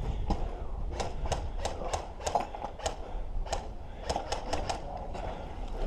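A series of sharp, irregular clicks and snaps, several a second at times, as from airsoft guns firing during a skirmish.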